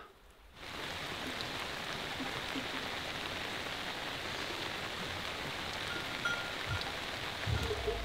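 Steady rain falling, an even hiss that comes in about half a second in.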